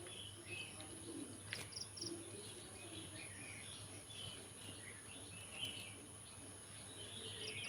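Faint birds chirping here and there over a steady high-pitched hiss.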